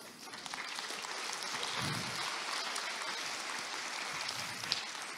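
Audience applauding, building up just after the start and fading out near the end.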